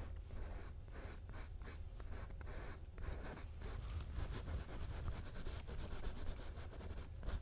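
Paintbrush scrubbing and dabbing oil paint onto a canvas: faint, quick scratchy strokes that come thickest a few seconds in.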